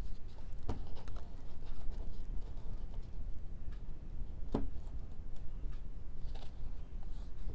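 A mat being fitted by hand over a small painting: light scraping and handling with two soft knocks, one just under a second in and one about halfway, over a steady low hum.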